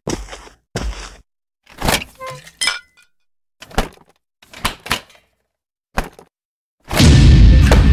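Cartoon sound effects: a series of sharp knocks and clinks, roughly one a second, some with a short ring after them, then a loud, dense burst of sound starting near the end.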